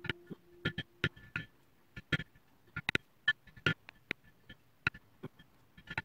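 A metal leather stamping tool struck with a poly mallet on leather over a stone slab: irregular sharp taps, some in quick pairs, each with a short metallic ring.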